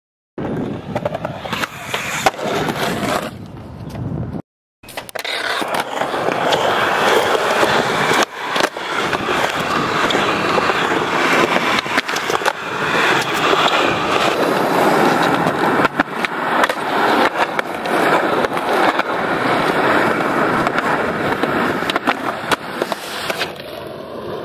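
Skateboard wheels rolling on concrete, with sharp clacks of the board popping and landing and the scrape of a grind on a bench edge. The sound cuts out briefly twice, near the start and about four and a half seconds in.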